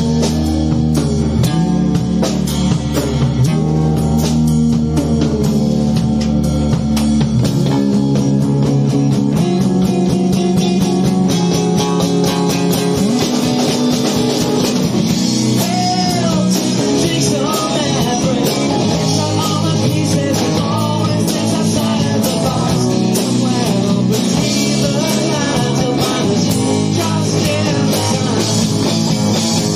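Rock band playing live: electric guitar, bass guitar and drum kit playing steadily together.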